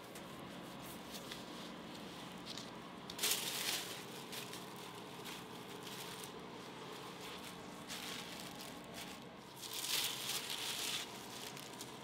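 Thin plastic sheet crinkling as it is handled and laid over rows of shaped dough, loudest in two bursts, about three seconds in and again near the end, over a faint steady hum.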